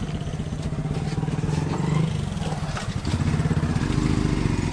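Motorcycle engine running with a fast, even beat, its pitch rising twice as it is revved.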